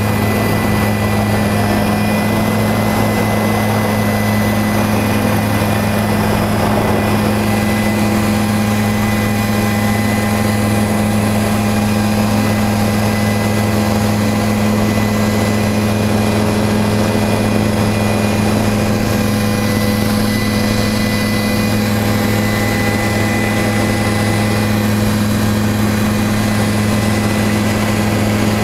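Helicopter's engine and rotor running steadily in flight, heard from inside the cabin: a loud, even hum with deep steady tones that does not change.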